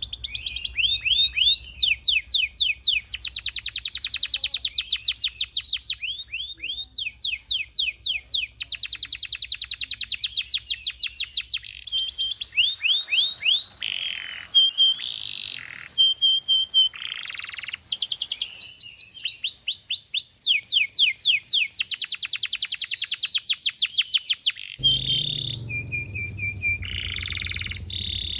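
Male domestic canary singing a long, continuous song of fast trills (rolls) of rapidly repeated notes, changing from one trill to the next every second or two, mixed with whistled and sliding notes. A low hum comes in near the end.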